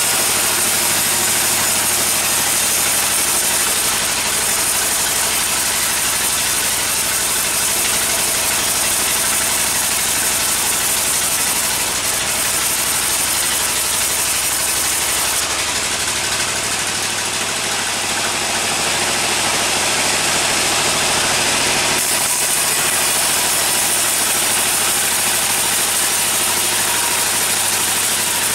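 Sawmill machinery driven by an engine, running steadily with an even drone and a constant low hum, dipping slightly for a few seconds past the middle.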